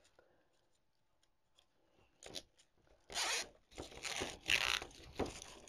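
Plastic zip tie being cinched tight around a styrofoam block, its strap zipping through the ratchet lock in several quick pulls starting about three seconds in, after a short rustle.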